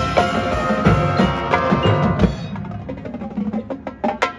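High school marching band playing its field show music, with percussion prominent. About two and a half seconds in, the full band thins out to quieter, separate percussion strikes.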